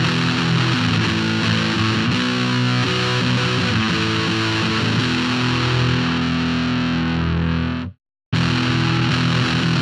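Strat-style electric guitar with single-coil pickups, played through heavy distortion in sustained chords and notes. About eight seconds in it fades and cuts out to silence for a moment, then the playing starts again.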